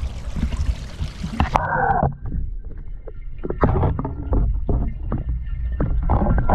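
Pond water rushing as a steady hiss, until the camera's microphone goes under about a second and a half in. From then on the sound is muffled underwater rumble, with scattered knocks and brief gurgles of bubbles.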